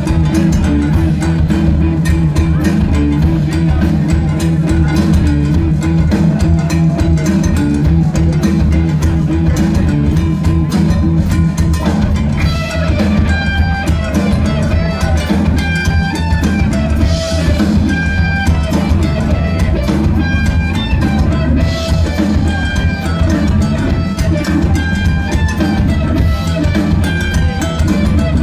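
Live rock band playing loud: distorted electric guitars, bass and a full drum kit, with a higher melodic line of held notes coming in about halfway through.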